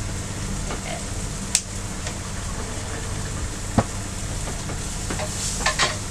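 Food sizzling in a frying pan, with a few sharp knocks of a utensil against the pan and a steady low hum underneath.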